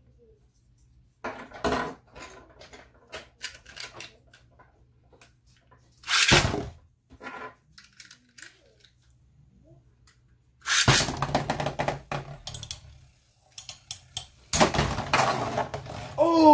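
Metal Beyblade spinning tops ripped off launchers, one after the other, into a plastic stadium: a sharp rush of the launch about six seconds in and another a few seconds later. After that comes the grinding rattle of the tops spinning and clashing against each other and the stadium floor.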